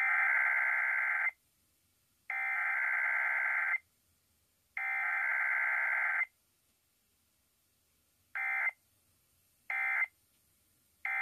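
Emergency Alert System digital data tones (SAME header) on a radio broadcast: three long, harsh, buzzing bursts about a second apart, opening the weekly test. Near the end come three short bursts of the same buzz, the end-of-message code.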